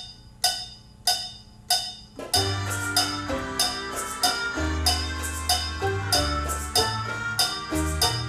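Automated plexiglass orchestrion-style instrument with guitar, banjo and steel drum pan starting a tune. Four evenly spaced metallic count-in strikes are followed about two seconds in by the full arrangement: a low bass line, struck percussion and pitched notes in a steady rhythm.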